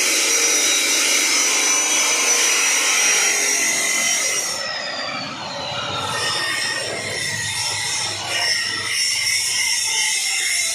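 Abrasive cut-off saw grinding through steel bar stock, a harsh grinding noise over a steady high whine from the spinning disc. About four and a half seconds in the whine slides down in pitch as the disc slows, and grinding goes on more unevenly after that.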